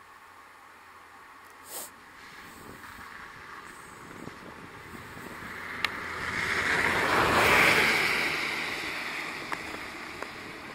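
A rushing noise swells to a peak about seven or eight seconds in and fades again, with a few faint clicks.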